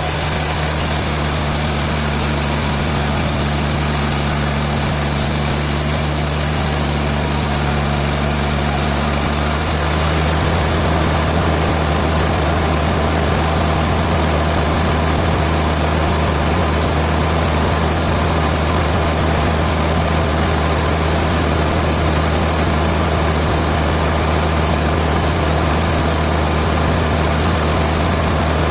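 Sawmill machinery's engine running steadily with a low, even hum; a high hiss stops about ten seconds in.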